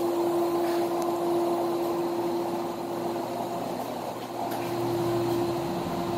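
Steady hum and rushing of a Vapormist VM-10 steam humidifier running: one constant tone over even noise. A deeper hum swells a little past halfway.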